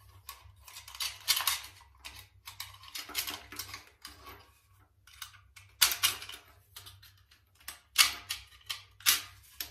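Hand tile nippers clipping small river-rock pebble tiles off their mesh sheet: a run of irregular sharp clicks and snaps, with loose stone pieces knocking together. The loudest snaps come about six and eight seconds in.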